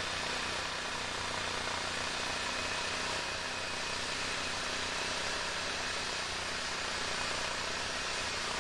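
Brideck Enterprise swingmill slabber, its engine running and bar saw cutting steadily through a black walnut trunk under hydraulic power feed.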